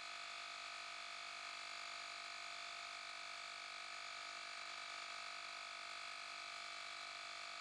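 Cordless handheld tire inflator running steadily while pumping up a car tire, heard faintly as an even hum with no change in pitch.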